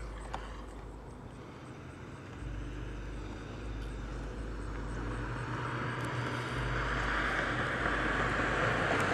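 Rushing noise of an approaching vehicle that grows steadily louder over the last few seconds, with low wind rumble on the microphone coming and going.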